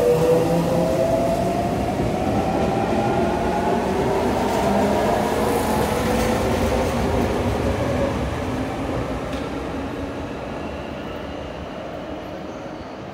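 Sotetsu 8000 series electric train with a Hitachi IGBT VVVF inverter accelerating away from the platform: several inverter tones climb together in a rising whine over wheel and rail rumble. After about eight seconds the whine stops rising and the sound fades as the train leaves.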